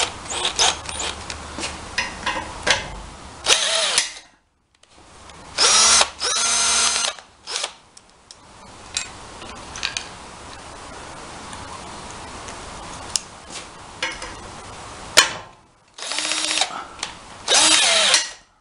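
Cordless drill driving a drill-mounted blind rivet adapter in several short bursts of about a second or less, with clicks and knocks from handling the tool and rivets in between.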